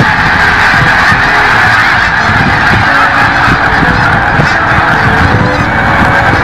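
A large flock of snow geese calling all at once: a loud, continuous din of countless overlapping honks with no break.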